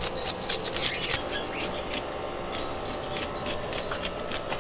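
Knife scraping and cutting at a whole yellowtail snapper on a wooden cutting board while the fish is being cleaned: a quick, irregular run of short scrapes and clicks.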